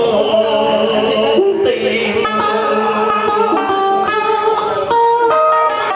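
Đờn ca tài tử music: a plucked-string instrument, guitar-like, plays held notes that step and slide between pitches.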